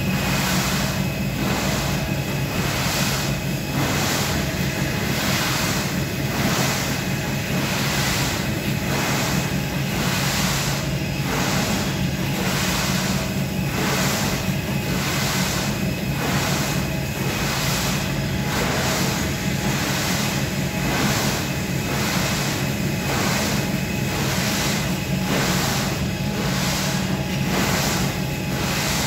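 Revolving carpet ski slope running: a steady motor-and-belt hum, with a hissing swish of skis scraping the moving carpet that swells and fades about one and a half times a second as the skier turns back and forth.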